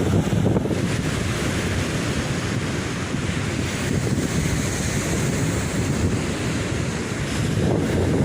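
Ocean surf breaking and washing on a beach, a steady rush with a brighter swell of hiss about halfway through. Wind buffets the microphone, adding a low rumble.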